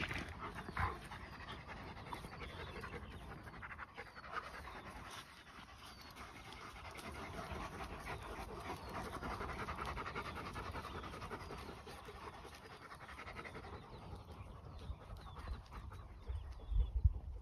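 Several large shepherd dogs panting, the panting swelling louder for a few seconds in the middle.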